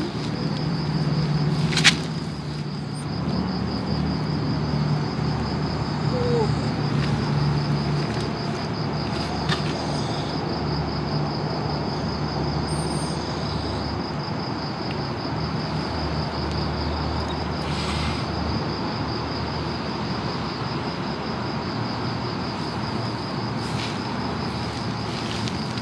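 Insects trilling steadily on one high, finely pulsing note, over a low hum that is strongest in the first eight seconds. A few faint clicks and rustles.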